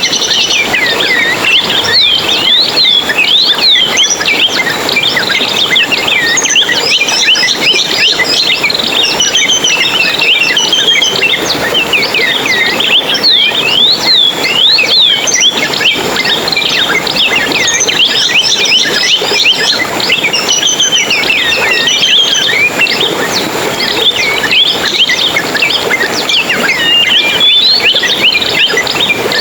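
A dense chorus of many small songbirds twittering and chirping together, with quick overlapping rising and falling notes that never let up.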